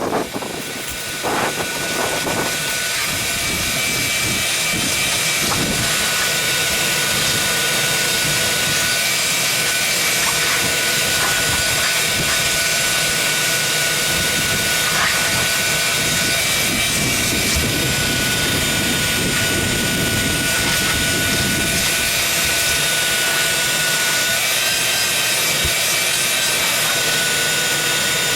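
Vacuum cleaner switched on, its motor spinning up over the first couple of seconds, then running steadily with a high whine over the rush of air.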